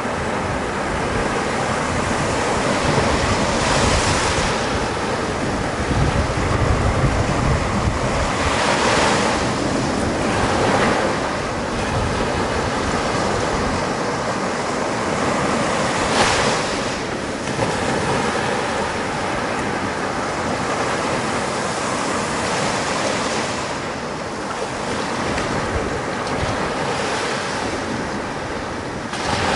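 Small waves breaking and washing up a sandy beach, the surf swelling every few seconds, with wind rumbling on the microphone.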